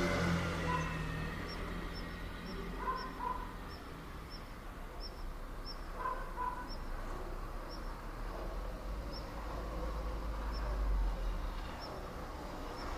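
Suburban outdoor ambience. Short high chirps repeat about once a second, and a bird gives a few short paired calls in the first six seconds. Low traffic rumble runs underneath and swells near the end.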